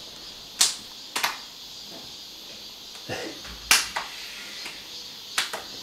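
Two children clapping hands against each other's in a hand-clapping game: several sharp claps at uneven intervals, the loudest about three and a half seconds in.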